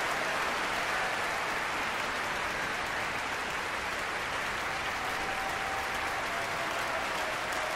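A large concert-hall audience applauding in a steady, continuous ovation, with many hands clapping at once.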